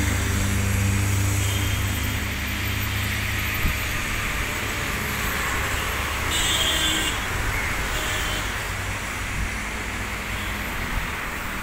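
Jet engines of an Airbus A320-family airliner rolling along the runway, heard across the airfield as a steady rushing noise, with a low hum in the first few seconds.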